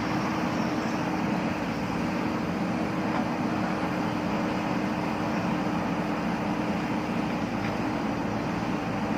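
JCB backhoe loader's diesel engine running steadily with an even, unchanging hum.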